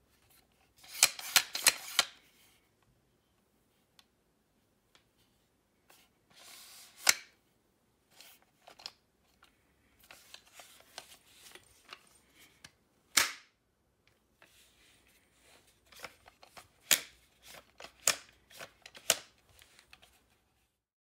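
Black plastic fixing clamp of a Buggy Board Maxi saddle being handled and snapped back into position on its aluminium stem: sharp plastic clicks and snaps, a quick cluster about a second in, single loud snaps midway, and several more near the end.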